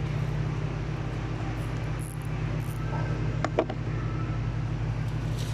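Steady low machinery hum, with a couple of sharp clicks about three and a half seconds in.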